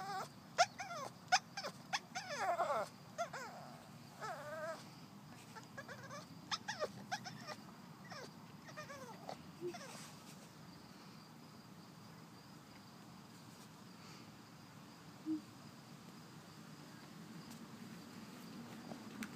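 Boston Terrier whining: a string of short, high, wavering whimpers, coming thick for the first ten seconds or so and then falling mostly quiet.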